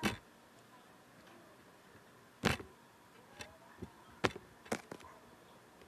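Handling noise of a handheld tablet: a few sharp knocks and taps as it is moved and gripped, the loudest about two and a half seconds in.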